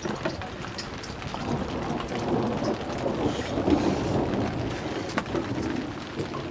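Rain pattering steadily with scattered light ticks, and a low rumble that swells and fades in the middle.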